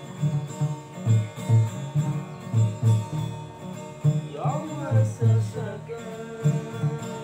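A Banyuwangi-style song played on makeshift instruments: plucked guitar-like strings over a steady beat of low thumps.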